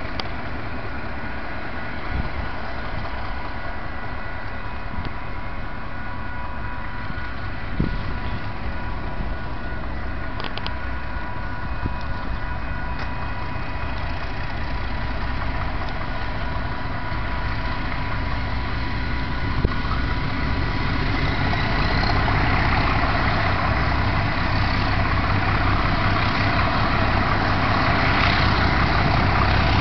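TasRail freight train's diesel locomotives approaching, their engines running with a low rumble and a faint steady whine, growing gradually louder as they near.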